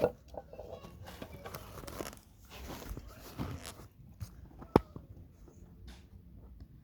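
Rough crunching and scraping of a plastic CPU socket being worked off a motherboard, with small clicks and one sharp, loud knock a little under five seconds in, typical of a hammer striking a tool set under the socket.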